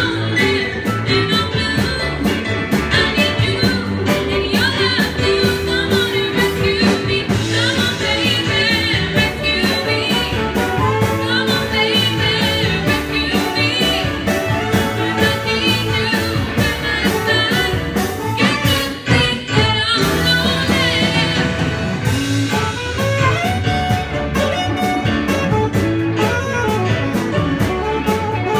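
Live band playing a blues-soul number with a saxophone horn section, electric guitar and drums keeping a steady beat, with girls singing into microphones.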